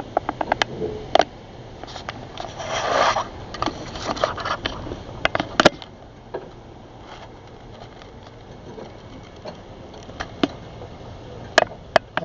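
Clatter of hard objects being handled: a run of sharp clicks and knocks, a scrape about three seconds in, more clicks, then two sharp clicks near the end.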